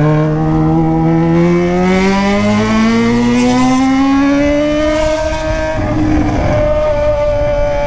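Yamaha XJ6's inline-four engine through a straight-pipe 3-inch stainless Atalla exhaust, with no silencer, pulling under acceleration. Its pitch rises steadily for about five seconds, then holds steady.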